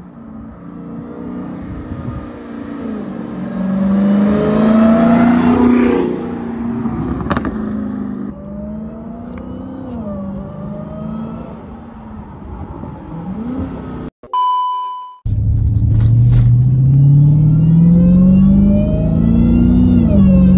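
Dodge Hellcat's supercharged V8, fitted with a JLT cold-air intake, accelerating hard past and then easing off, its pitch rising and falling. About fourteen seconds in there is a short steady electronic beep, then the engine revs up hard again with a steadily climbing pitch and a gear change near the end.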